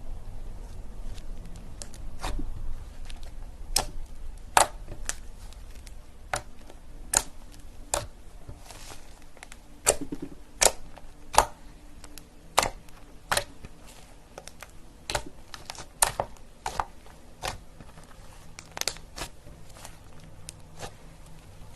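Slime being squeezed and poked by hand, giving irregular sharp pops and clicks, roughly one or two a second.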